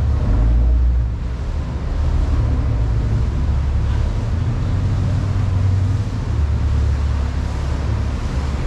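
Boat engines running through the inlet, a loud steady low rumble, mixed with wind buffeting the microphone and the wash of waves.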